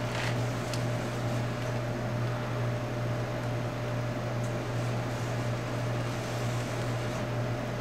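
A steady low hum under an even background hiss, unchanging throughout, with a couple of faint clicks in the first second.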